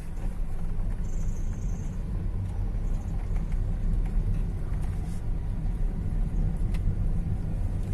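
Hyundai HB20 on the move, with steady low road and running rumble and a few faint knocks, about five and seven seconds in. The knocks are a metal-on-metal knock from the front suspension, which the owner traces to worn stabilizer links.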